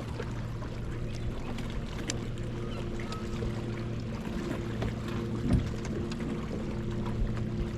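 Steady low hum of a fishing boat's motor, holding several fixed tones over a background hiss, with a single knock about two-thirds of the way in.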